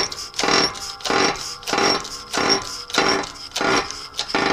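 Hydraulic shop press being pumped by hand, pressing a bearing onto a final drive pinion shaft: a regular stroke about every 0.6 s, each with a short pitched squeak.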